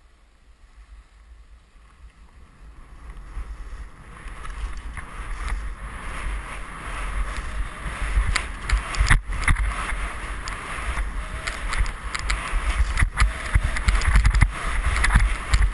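Skis hissing and scraping over snow, with wind buffeting the skier-worn camera's microphone. It grows steadily louder as the skier picks up speed, with scattered sharp scrapes.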